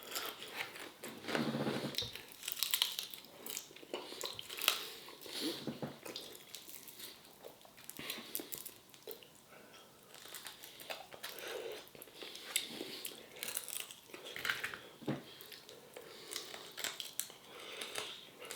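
A person chewing and crunching food close to the microphone, in irregular bites and mouthfuls.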